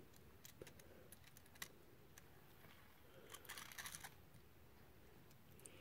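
Near silence broken by faint scattered clicks and a short patter of clicks about three and a half seconds in: a small die-cast metal toy engine rolled by hand across carpet.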